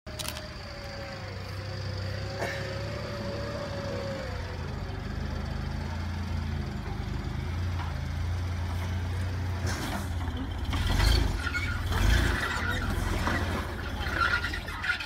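An off-road 4x4's engine running at low revs as it crawls over sand and rock, with two louder low surges about three-quarters of the way through.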